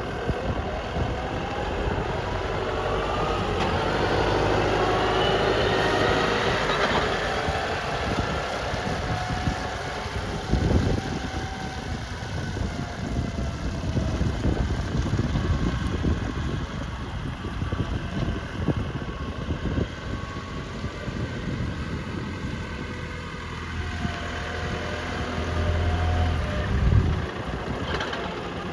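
Hydrema 906F backhoe loader's diesel engine running, its pitch rising over the first several seconds as the engine speeds up, then varying, with a few knocks about eleven seconds in and near the end.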